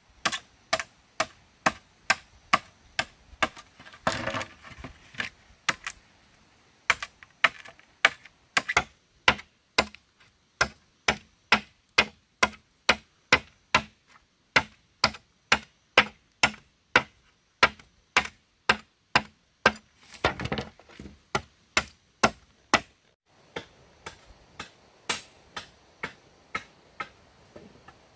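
Machete blade chopping split bamboo strips against a log: sharp, evenly spaced strokes about two or three a second, with short pauses and twice a brief noisier crackle.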